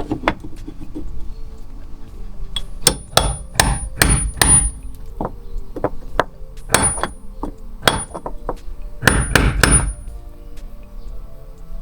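Hammer driving a chisel against the metal lock ring that holds the fuel pump in a Holden VT Commodore's fuel tank, tapping it round to free it. Sharp taps come in irregular groups, some with a short high metallic ring.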